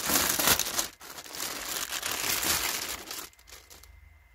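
Clear plastic packaging bag crinkling and rustling as it is handled and the hoodie is pulled from it, with a short break about a second in; the crinkling stops about three seconds in.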